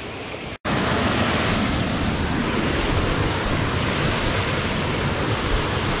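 Steady rushing of water over a low, wide rocky waterfall, mixed with wind on the microphone. The sound cuts out for an instant under a second in, then comes back louder.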